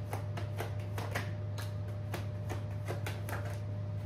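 A tarot deck being shuffled hand to hand, the cards flicking and tapping together in quick, irregular clicks, about three or four a second, over a steady low hum.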